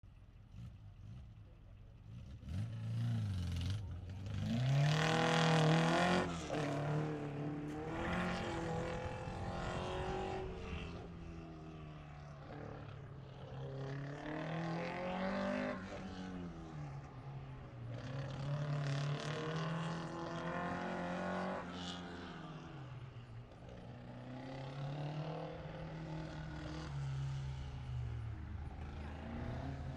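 Series 1 Lotus Seven's engine accelerating hard and easing off again and again as the car threads between autocross cones, its pitch rising and falling every couple of seconds. It is faint at first and loudest about five seconds in.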